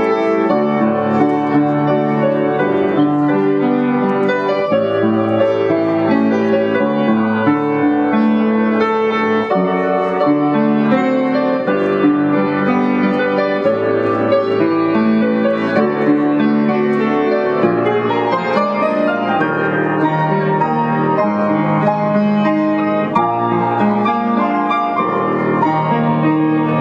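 Piano being played: a continuous flow of chords and melody notes, with notes held and changing every second or so at an even loudness.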